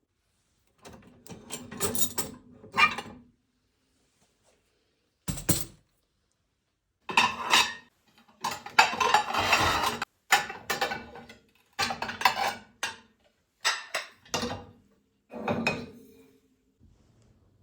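Dishes and cutlery clinking and knocking in several clusters, separated by short pauses.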